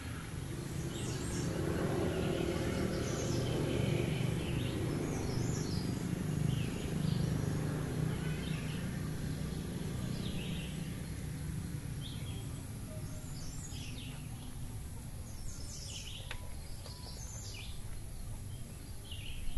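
Small birds chirping in short, scattered calls, over a steady low outdoor rumble.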